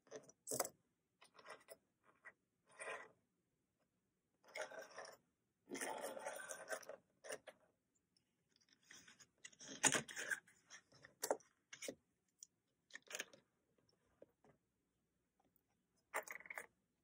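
Small stationery items (metal clips, pins, plastic packets) being picked up, shuffled and set down on a desk: scattered brief rustles, scrapes and clicks, with a sharper tap about ten seconds in and a plastic pencil case handled near the end.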